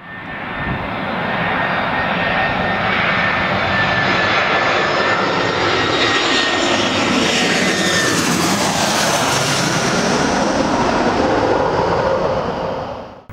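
Twin-engine jet airliner passing low overhead, its engine noise loud and steady with a high whine that drops in pitch as it goes by. The sound cuts off suddenly near the end.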